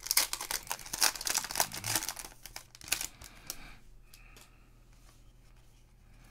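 A sports card pack wrapper being torn open and crinkled in the hands for about the first three and a half seconds, then going quieter to faint handling of the cards.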